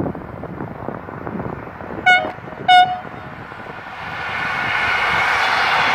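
Electric freight locomotive sounding its horn in two short toots about half a second apart. From about four seconds in, the rumble and rush of the locomotive and its container wagons passing grows steadily louder.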